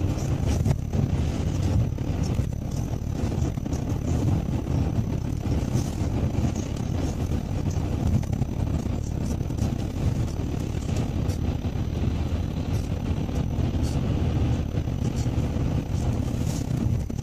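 Steady road noise inside a moving car's cabin: a low rumble of engine and tyres running on a wet road surface.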